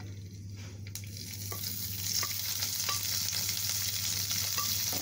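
Chopped onion, curry leaves, garlic, green chilli and ginger hitting hot coconut oil in a clay pot: sizzling starts suddenly about a second in and carries on steadily, with a few light scrapes and taps of a spatula stirring. A steady low hum runs underneath.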